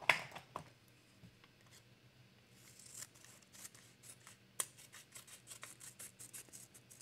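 Small scissors snipping lengthwise up a strip of masking paper: a quick run of short, sharp snips from about three seconds in, after one sharp click at the start.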